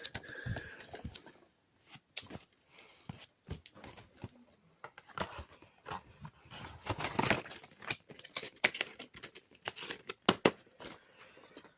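Plastic DVD cases and packaging being handled: scattered clicks and taps with rustling, the busiest stretch about seven seconds in.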